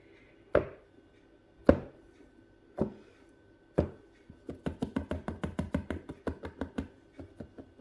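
Silicone moulds of freshly poured resin tapped against the work surface: four single knocks about a second apart, then a quick run of taps, about eight a second. The tapping settles the liquid resin into the mould's fine detail.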